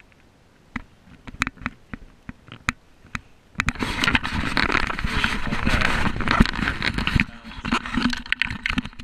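Handling noise from the camera being turned round on its mount: a hand rubbing and scraping at the camera, loud for about three and a half seconds in the middle, with scattered light clicks and taps before and after.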